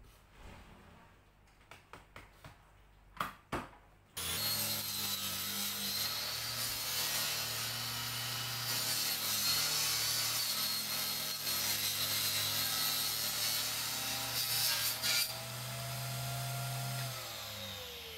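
A few light knocks as the plywood sheet is handled, then a table saw starts suddenly about four seconds in and rips through a plywood sheet with a steady cutting sound. Near the end the saw is switched off and winds down with a falling whine.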